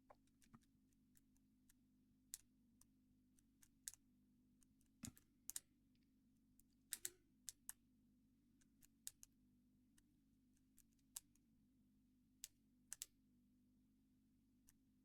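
Small, irregular clicks of a Squire CP50 combination padlock's number wheels being turned notch by notch, some in quick pairs, as the wheels are stepped through their digits while feeling for play. A faint steady hum lies under them.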